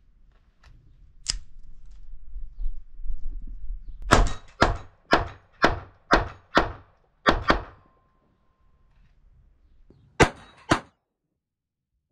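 Laugo Arms Alien 9mm pistol being loaded, with a sharp metallic click and handling noise, then fired: eight shots in quick succession, about two a second, and after a pause of about two and a half seconds, two more shots.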